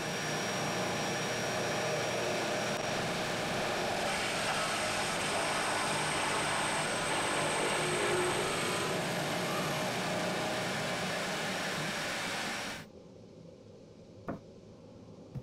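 Bench drill press running and boring a large hole into plywood: a steady motor-and-cutting noise with a faint high whine. It stops abruptly about thirteen seconds in, and a light knock follows near the end.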